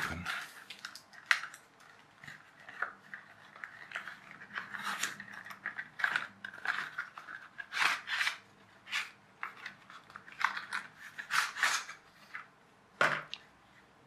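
Cardboard box being opened at one end and an LED strip light module slid out of it and handled: irregular rustling, scraping and crinkling of card and paper, with a sharp click about a second in.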